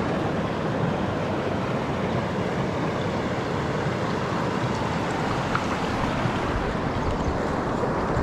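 Mountain stream water rushing steadily, a continuous even noise.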